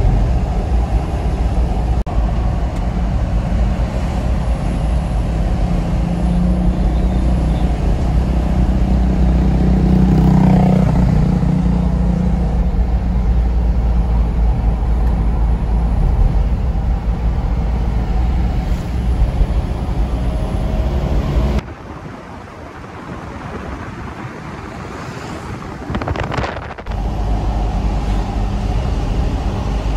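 Engine and road noise of an elf minibus heard inside its cabin while driving, a steady low rumble. The engine note rises about ten seconds in, and for about five seconds past twenty seconds in the sound drops to a quieter hum before the full driving noise returns.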